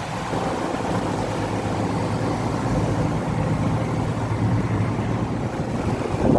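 Boat underway: a steady low engine rumble mixed with wind and water noise rushing past the hull.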